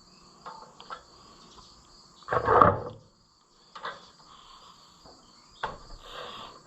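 Hand tools working on the valve rockers of an Oliver 66 engine during a valve adjustment: a few light metallic clicks and one louder scraping clatter about two and a half seconds in. A steady high chirping of crickets runs underneath.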